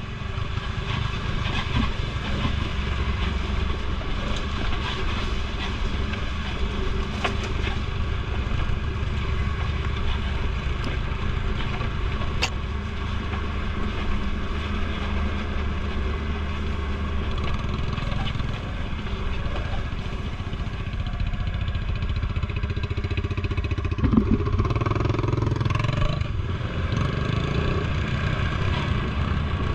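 ATV engine running steadily while riding, with a sharp thump a little over three-quarters of the way through.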